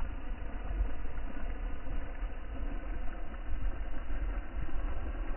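Wind buffeting the microphone in a low, uneven rumble over a faint steady hiss.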